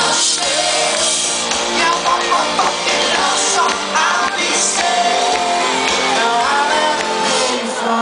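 Music with a singing voice, in a rock or pop style.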